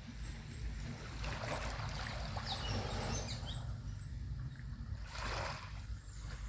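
Small ocean waves washing onto the beach, swelling twice over a steady low rumble of surf, with a faint high chirp repeating about twice a second.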